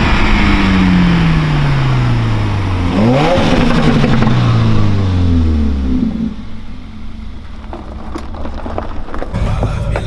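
2015 Subaru WRX's turbocharged flat-four with a muffler-delete exhaust, revving hard on a drive-by. Its pitch falls slowly, climbs sharply again about three seconds in, and falls away over the next few seconds. The exhaust then quietens, and a low steady engine hum comes in near the end.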